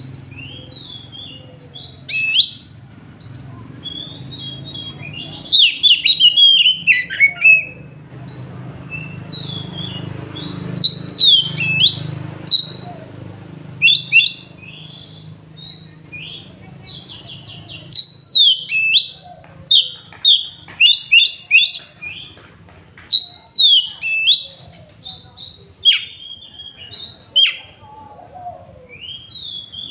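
Oriental magpie-robin (kacer) singing loud, varied phrases of sharp whistled notes that swoop up and down. The phrases come in clusters separated by short pauses. This is its 'tembakan', the loud shooting song that keepers prize for making a rival bird back down.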